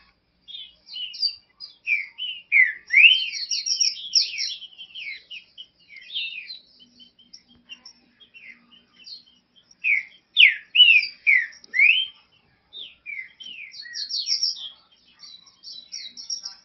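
Green-winged saltator (trinca-ferro) singing: runs of quick whistled notes sliding up and down, in bursts with short pauses between them.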